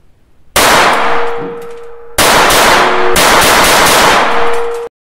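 CZ 75 Kadet .22 LR pistol firing a string of shots in a small foam-lined range booth. One shot comes about half a second in and another about two seconds in, then a run of quicker shots follows until the sound cuts off abruptly near the end.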